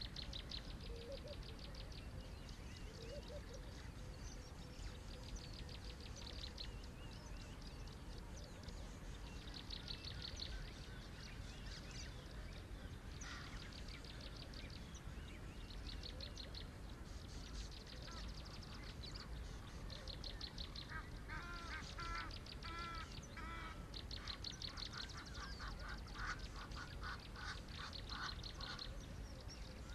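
Wild birds calling in the bush: many fast rattling trills throughout, and from about two-thirds of the way in a run of repeated lower, looping call notes. A low, steady rumble lies underneath.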